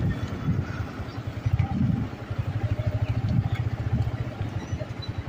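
Motor vehicle engine running with a low, fast pulsing beat that grows stronger about two seconds in.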